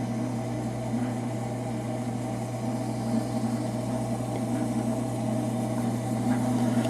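Frigidaire "Meter Miser" refrigerator compressor running with a steady low hum, refrigerant flowing through the lines just after start-up.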